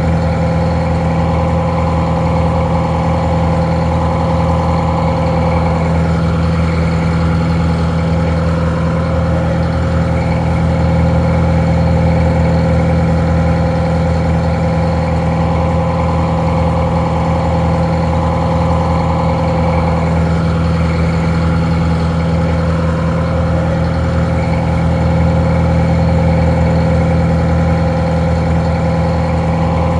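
Detroit Diesel 4-71 two-stroke diesel engine idling steadily, a low, even drone, somewhat muffled.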